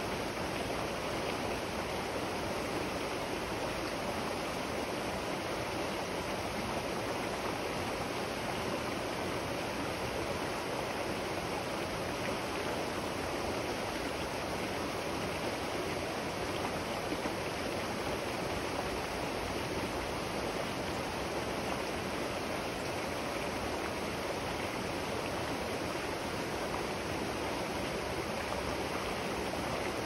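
River water flowing steadily, an even rush of water that does not change.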